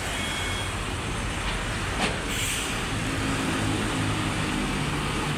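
Wheel loader's Hyundai four-cylinder engine running. A beeping alarm runs through the first moment. About two seconds in there is a sharp click and a short hiss, and a steadier engine note comes through in the second half.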